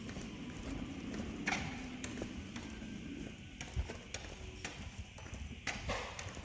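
Old Volkswagen Microbus running: a steady low engine rumble with scattered clicks and knocks.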